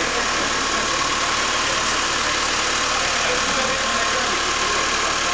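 Engine of a Linde counterbalance forklift running steadily at low revs as the driverless truck slowly manoeuvres with a clamped paper reel.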